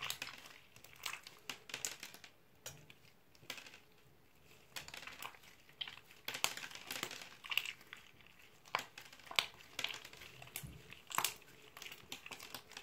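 Green slime mixed with small plastic beads being squeezed and kneaded by hand, giving irregular wet crackles and clicks.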